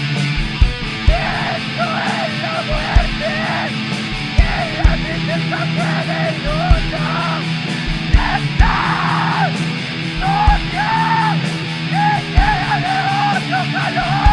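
Depressive black metal song: harsh yelled vocals over sustained distorted guitars, with scattered low drum hits.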